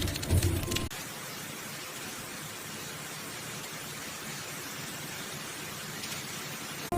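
Steady, even hiss like static or white noise. It cuts in sharply about a second in, after the end of some music, and stops abruptly near the end.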